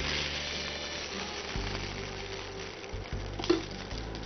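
Background music with sustained low notes, over the faint sizzle of rice in a hot pan. A single short clink of a utensil about three and a half seconds in.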